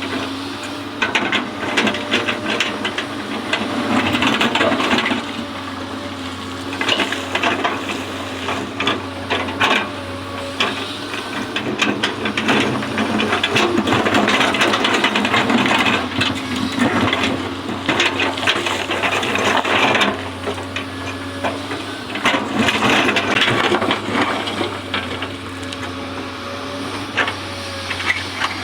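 Excavator's diesel engine and hydraulics running steadily under load, with repeated stretches of clattering and scraping every few seconds as the machine works.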